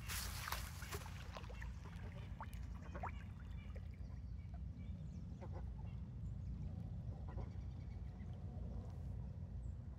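Ducks quacking now and then over a steady low wind rumble on the microphone, with a short burst of noise in the first second.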